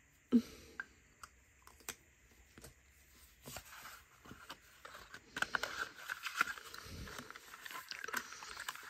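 A makeup stick and its cardboard box being handled: a sharp click just after the start, a few scattered light taps, then soft rustling and scraping from about five seconds in.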